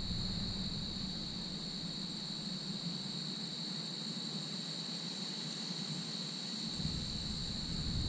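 Crickets chirring steadily in two high, unbroken tones, over a low steady hum.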